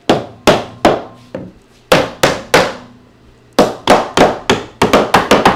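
A rubber mallet strikes a wooden sofa frame again and again, knocking the glued rail joints together on their dowels. There are about sixteen sharp knocks: a first group of seven, a pause of about a second, then a run that quickens near the end.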